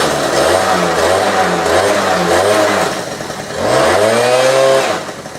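Honda Spree's small 49cc two-stroke scooter engine running and being blipped, its pitch wavering up and down, then revved higher about three and a half seconds in before dropping back near the end. It has just been started after a carburetor clean and its idle and air screw are being set.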